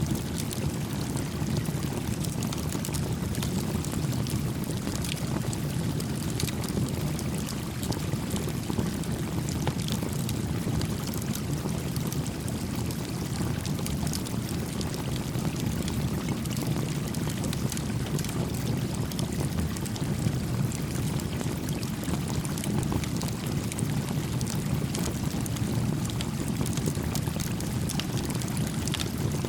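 A small campfire crackling with scattered sharp pops over the steady, even rush of a gently flowing creek.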